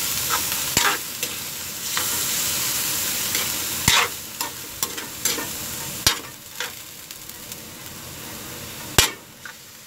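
Diced pork sautéing in hot oil in an aluminium wok, a steady sizzle, while a spatula stirs it and knocks sharply against the metal several times. The sizzle eases slightly about six seconds in.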